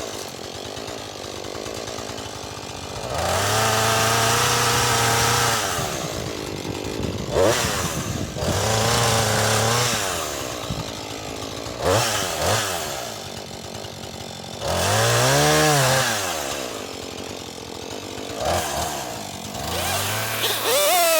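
Husqvarna 440e two-stroke chainsaw revving to full throttle three times, each time holding high speed for a second or more, likely cutting through wood, then dropping back to idle in between.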